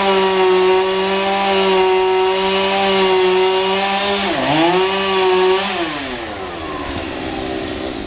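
Two-stroke chainsaw held at full throttle, its engine note steady and high, with a brief dip and climb back about halfway through. About six seconds in it falls back to idle.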